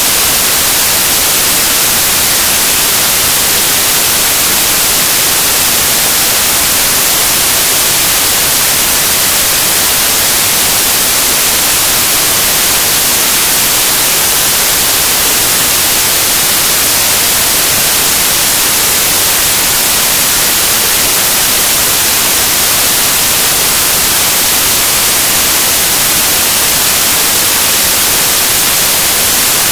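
Loud, steady static hiss, even and unbroken, with no match sounds, voices or kicks standing out from it.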